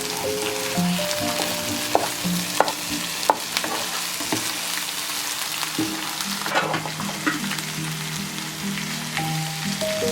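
Fish frying in hot oil with a steady sizzle, and a few sharp clicks between about two and three and a half seconds in. Background music with held notes plays underneath.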